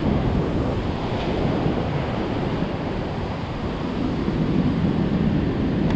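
Surf washing onto a beach, with some wind noise on the microphone.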